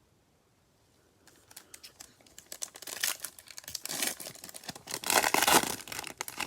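A foil trading-card pack wrapper being torn open and crinkled, building from about a second in and loudest near the end.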